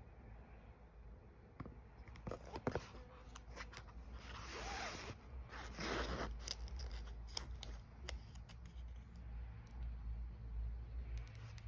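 Handling sounds of a new iPhone and its plastic screen film: a few light clicks and taps, then two longer rustling scrapes about halfway through, as the film is peeled from the screen.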